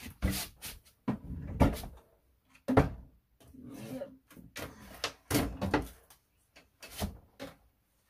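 Kitchen cupboard doors and drawers opening and closing, with irregular knocks and clunks of things being moved, as someone rummages through the cupboards looking for a bottle.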